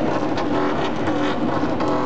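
Loud electro dance music with a repeating synth line over a steady beat.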